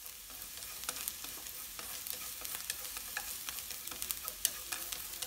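Chopped onion sizzling in hot oil in a frying pan while being stirred with chopsticks, a steady hiss with frequent sharp crackles and pops.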